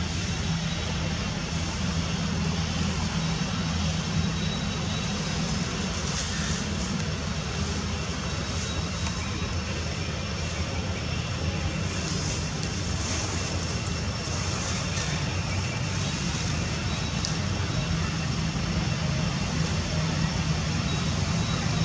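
Steady outdoor background noise: a low rumble with an even hiss over it and faint high steady tones, unchanging throughout.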